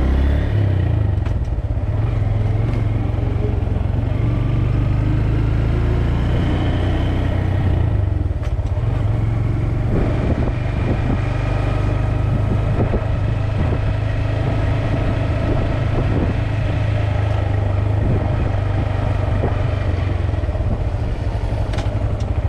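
Motorcycle riding steadily along a city street, heard from the bike itself: a constant heavy low rumble of wind on the microphone over the bike's running noise, with a few light knocks partway through.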